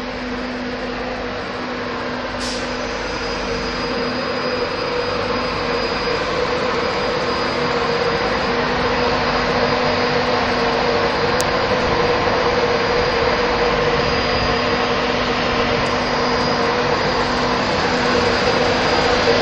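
East Coast Class 91 electric locomotive and its train drawing in at a platform: a steady electric drone with a low hum, growing gradually louder as the locomotive comes near.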